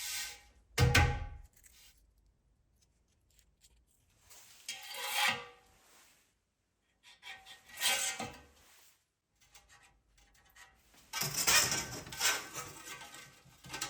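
Scraping and rasping work on the steel of an old gas cylinder in short bursts a few seconds apart, with a heavy knock about a second in.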